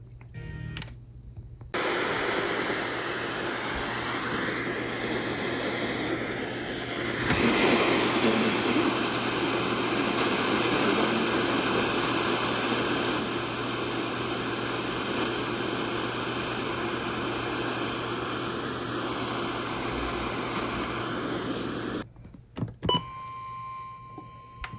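Steady radio static: the hiss of a receiver on a weak or empty signal, ending suddenly near the end. A few clicks follow, and then a steady single tone begins.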